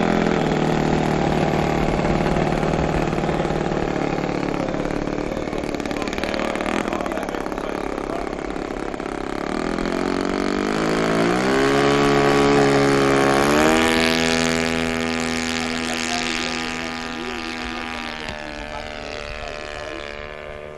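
ASP .70 four-stroke glow engine on a model Piper J3 Cub, running steadily at low throttle while taxiing, then opened up in steps about ten seconds in for the takeoff run. It is loudest a few seconds later, then holds a higher pitch and fades as the plane climbs away.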